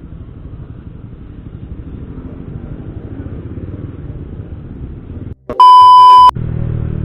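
Honda CB150R motorcycle riding noise: a steady low rumble of engine and wind. About five and a half seconds in it cuts out briefly, and a loud, steady electronic beep sounds for under a second.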